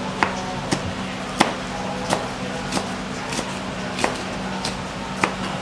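Kitchen knife slicing large green chillies on a plastic cutting board: about nine sharp knocks of the blade on the board, evenly paced at roughly one every two-thirds of a second.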